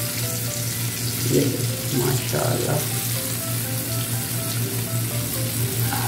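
Oil sizzling steadily in a frying pan of masala-stuffed green chillies as they are lifted out with metal tongs.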